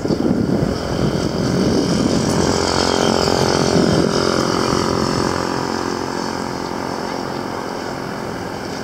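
A motor vehicle's engine droning as it passes, growing louder to a peak a few seconds in and then slowly fading away.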